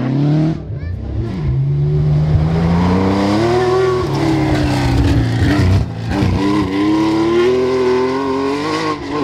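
Classic Porsche 911 rally car's flat-six engine revving hard as it accelerates on gravel, its pitch climbing, dipping back briefly twice with lifts of the throttle, then climbing again.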